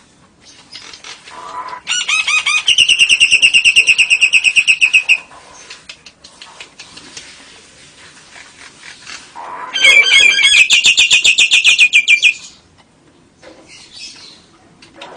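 A cage bird giving two long, rapid chattering trills of evenly repeated high notes, each lasting about three seconds, with a pause in between.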